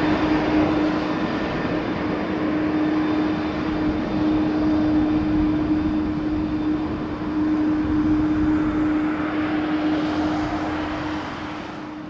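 Jet airliner on landing approach passing low overhead: a loud engine roar with a steady hum, dying away near the end.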